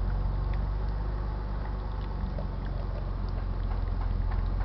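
Car engine idling with a steady low hum, running so that its alternator backs up the battery powering an HHO electrolysis cell. A few faint ticks sound over it.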